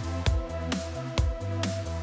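Background electronic music with a steady beat and a bass line.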